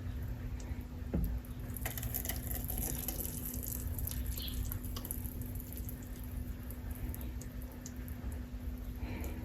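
Kitchen tap water running briefly and splashing, with dripping and small clicks, as a cup is rinsed. A steady low hum sits underneath.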